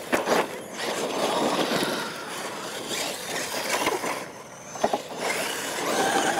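Radio-controlled monster trucks racing across dirt and gravel: motors whining up and down in pitch over the hiss of tyres on loose ground, with an occasional knock.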